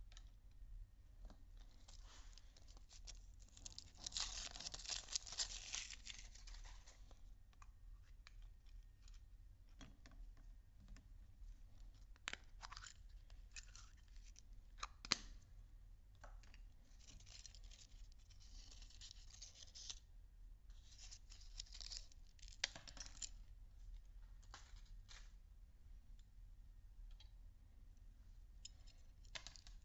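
Faint rustling and tearing of a small plastic toy packet being pulled open, in several spells, with a few sharp clicks of a plastic surprise-egg capsule being handled.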